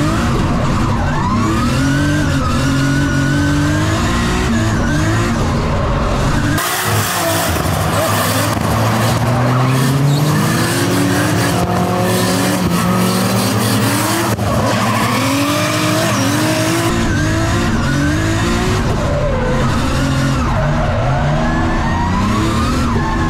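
A 1000 hp Nissan S15 Silvia drift car on track, its engine revving up and dropping back again and again through the drifts, with tyre squeal.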